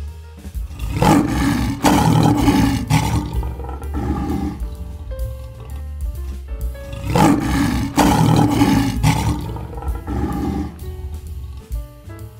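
Lion roaring in two long bouts about six seconds apart, over background music.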